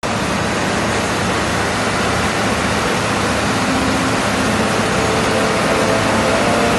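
Heavy road-construction machinery running steadily, a constant engine drone.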